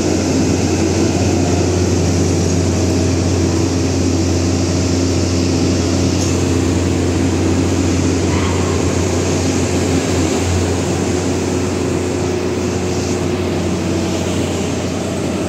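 PNR diesel train engine running with a steady loud drone and low hum.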